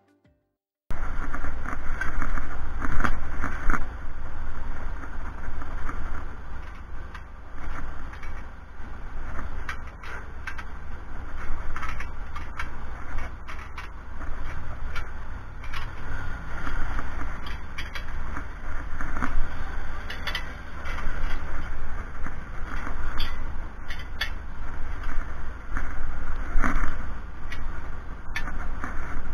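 Wind rumbling on the microphone, starting suddenly about a second in, with scattered clicks and light knocks throughout.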